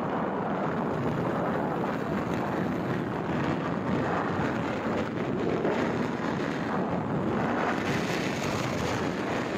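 Steady wind rush over the microphone while riding a motorcycle, with the vehicle's running and road noise underneath.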